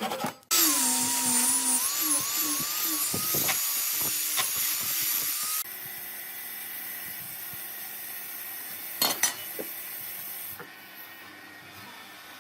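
A power tool runs on wood with a wavering whine and a loud hiss, cutting off about five and a half seconds in. A quieter steady hum follows, with a few sharp clicks around nine seconds in.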